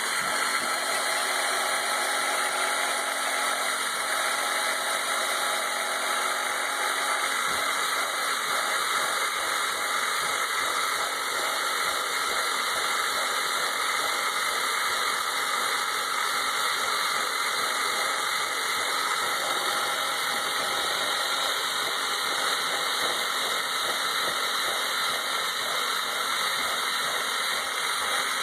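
Electric drill running steadily under load, its small side-cutting bit milling a 2-inch slot through plastic.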